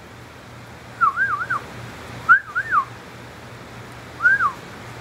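Sleeping pit bull puppy giving three short bouts of high, squeaky whimpers, each wavering up and down in pitch, about a second in, near the middle and near the end.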